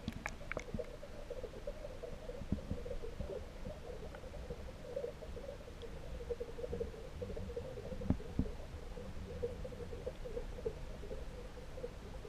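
Muffled underwater noise picked up by a camera held under a pond's surface: a steady, wavering hum over a low rumble, with two knocks about eight seconds in.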